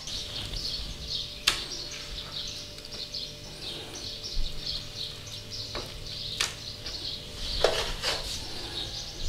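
Hands pressing and turning chicken breast in a stainless steel tray of panko breadcrumbs, a dry crumbly rustling with a few sharp clicks against the tray. A faint steady hum runs underneath.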